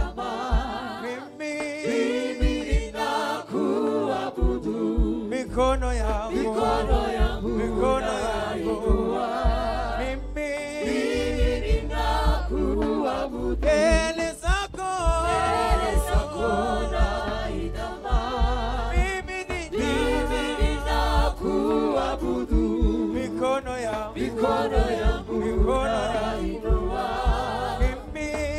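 A worship team of male and female voices singing a gospel praise song together through handheld microphones, with a deep low accompaniment coming in a few seconds in.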